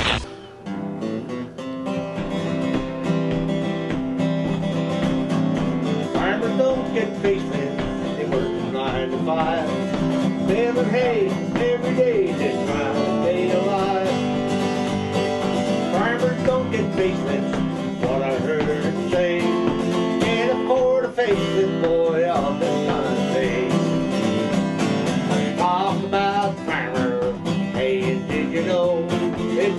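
Country-bluegrass instrumental music with acoustic guitar, and a wavering lead melody over a steady accompaniment.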